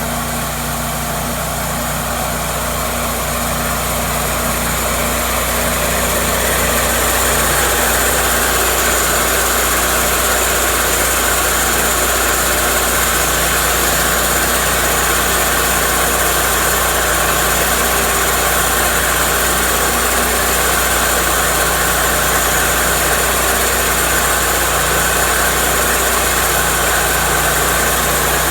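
Cook's MP-32 portable sawmill's engine running steadily. It grows a little louder over the first several seconds, then holds even.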